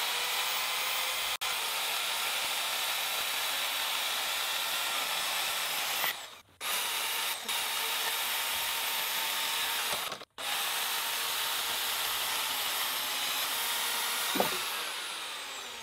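Vevor portable bandsaw running and cutting through a rusty steel pipe, a steady motor and blade noise broken by two short gaps. Near the end there is a sharp knock, then the saw motor winds down.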